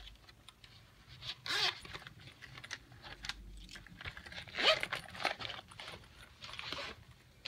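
A planner and its clear plastic cover being handled: scattered rustles and short squeaks, the loudest about one and a half seconds in and again just past the middle.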